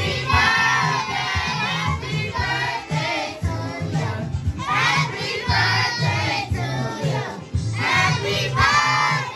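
A group of voices, children among them, singing together over music with a repeating bass line.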